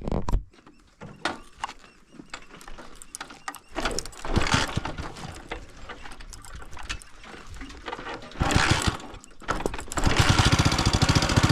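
Scattered clicks and knocks, then a motorcycle engine starts about ten seconds in and runs steadily at idle with an even, rapid beat.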